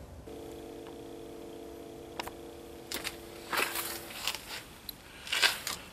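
A few light metallic clicks and rustles as a steel Heli-Coil thread insert and socket are handled, over a steady low hum that stops about four seconds in.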